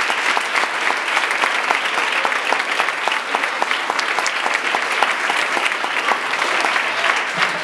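Audience applauding: dense clapping from many hands that eases off slightly near the end.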